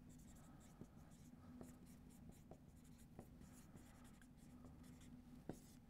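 Faint, irregular short strokes and taps of a dry-erase marker writing on a whiteboard.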